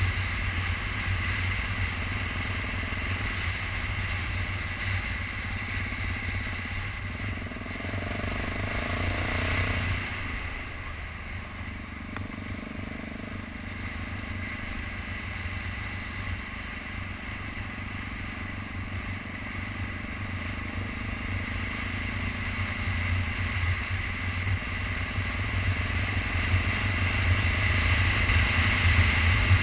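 2012 BMW G650GS Sertao's single-cylinder engine running under way on a dirt road, with a steady low rumble of wind and road noise. It eases off somewhat in the middle and gets louder again near the end as the bike picks up speed.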